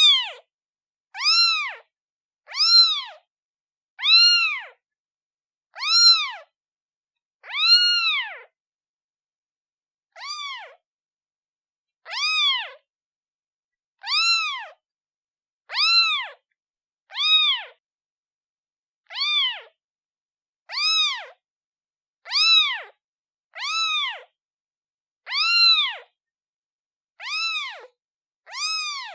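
Newborn kitten meowing for its mother: a string of high, thin meows, each rising then falling in pitch, about one every second and a half, with a slightly longer pause about nine seconds in.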